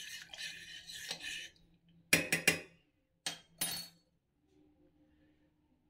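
Metal spoon stirring and scraping inside a steel saucepan of dissolving jaggery syrup for about a second and a half. Then a few sharp metal clinks of the spoon against steel, a little after two seconds and again around three and a half seconds, as the spoon is put down.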